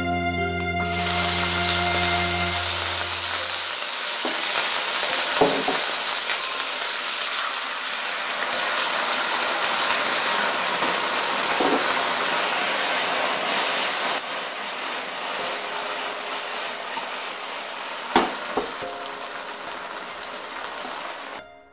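Prawns frying in hot oil in a nonstick pan: a loud, steady sizzle with a few short knocks against the pan, cutting off suddenly near the end.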